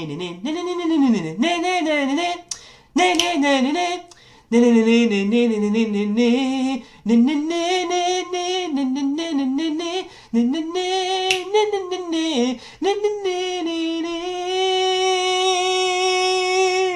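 A single voice humming a film-score style melody in short phrases, a mouth-made imitation of soundtrack music, ending on one long held note.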